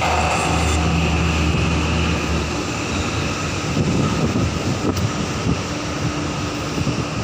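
Marine diesel engine running with a steady low drone that fades out about two and a half seconds in, leaving a steady rushing noise with uneven gusts.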